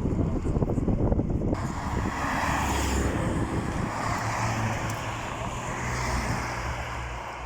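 A car engine running with a low, steady rumble. About a second and a half in, a broader rushing sound joins it, like a car moving off with tyre and road noise.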